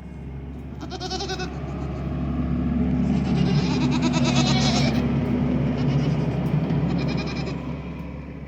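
Goats bleating several times, wavering calls, over the steady low drone of an engine running nearby that grows louder in the middle.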